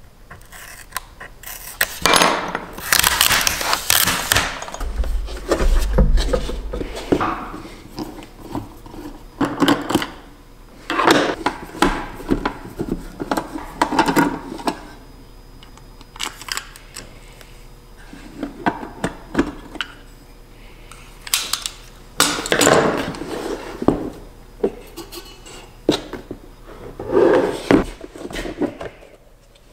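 Plastic housing of a Rosewill food dehydrator being handled and taken apart with a hobby knife and a screwdriver: irregular spurts of scraping, clicking and knocking on the plastic.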